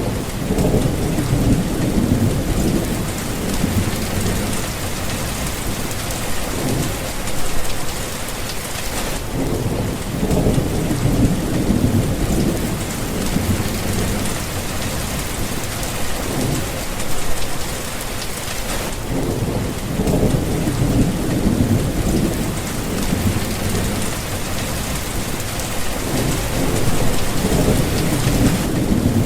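Heavy rain falling steadily, with deep thunder rumbling in repeated long rolls every several seconds.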